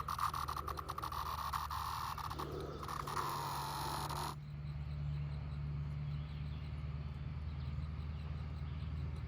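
Chorus of Brood X periodical cicadas: a steady, mid-pitched drone with fine pulsing that cuts off abruptly about four seconds in. A low steady hum continues underneath.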